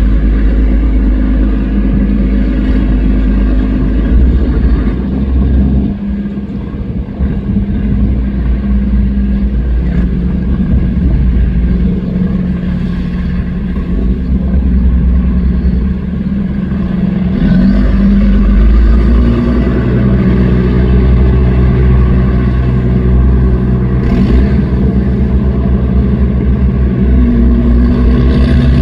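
Express riverboat's big inboard engines running at speed: a loud, steady low drone whose pitch shifts up and down a few times.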